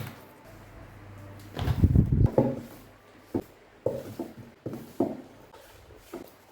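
Notebooks and books being handled and set down on desk shelves: a loud bump and shuffle about two seconds in, then a string of short knocks as they are placed one after another.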